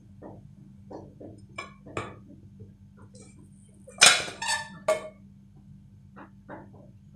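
A nonstick frying pan and a white plate clattering as an omelette is flipped from the pan onto the plate and the empty pan is set down on a marble countertop. Light knocks first, then a loud clank about four seconds in with two rattles right after it, and a few softer knocks near the end.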